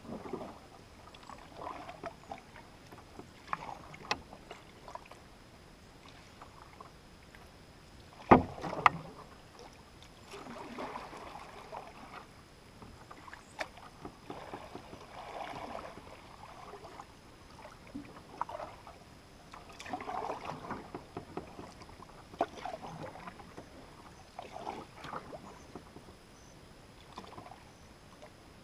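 Canoe paddle strokes through calm water, a soft swish and splash every two seconds or so, with small clicks between them. A loud sharp knock about eight seconds in.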